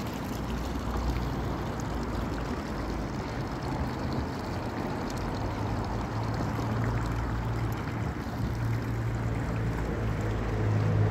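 Steady city-street background noise from traffic. A vehicle engine's low hum comes in about halfway and grows louder near the end.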